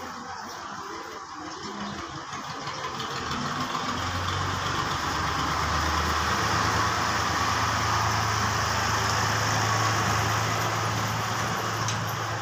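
A motor engine running steadily with a low hum, growing louder over a few seconds from about three seconds in and then holding at that level.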